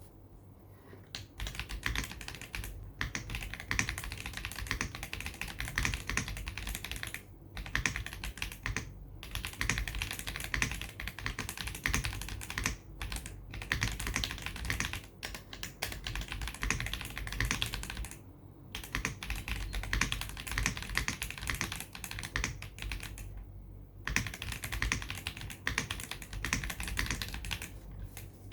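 Fast typing on a James Donkey A3 mechanical keyboard with pre-lubed WS Heavy Tactile switches and PBT Dolch keycaps, a dense run of clacky keystrokes broken by several short pauses.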